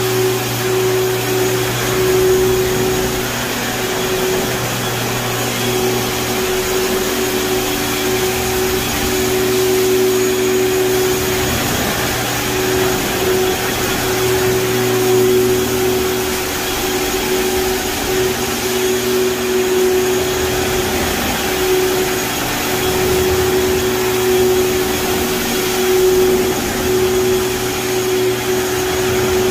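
A Kärcher walk-behind scrubber-dryer runs steadily as it scrubs and vacuums up the liquid on a wet hardwood floor, stripping old wax. Under the motor and suction noise is a low hum and a whine that keeps cutting out briefly and returning.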